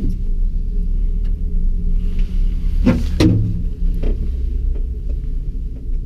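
Steady low rumble and hum inside a Panoramic Mont-Blanc gondola cabin as it rides the cable, with scattered light clicks and a brief louder creaking clatter about three seconds in.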